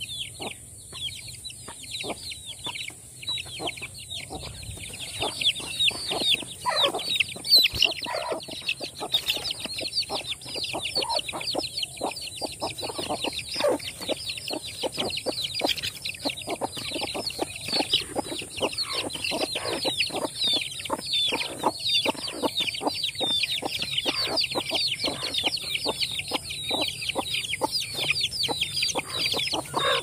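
A flock of young Aseel chickens peeping, many short, high, falling chirps overlapping without a break and growing busier after the first few seconds.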